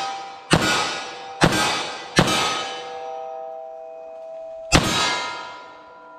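Four pistol shots from a .40 S&W semi-automatic, the first three in quick succession and the fourth after a pause of about two and a half seconds. Each shot is followed by a metallic ring that fades over a second or more.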